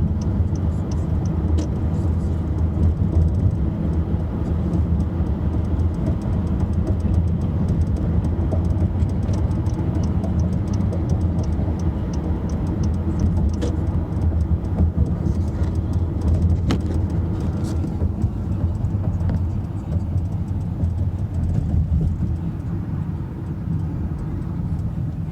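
Car running with a steady low engine and road rumble. A light, rapid rattle ticks over it, clearest in the first half.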